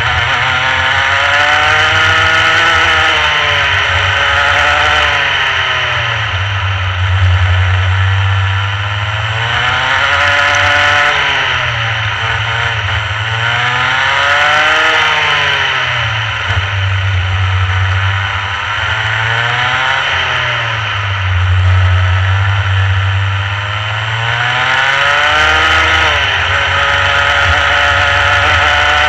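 Rotax Mini Max kart's 125 cc two-stroke single-cylinder engine running hard on track. Its pitch climbs as the kart accelerates and drops away as it slows for corners, again and again.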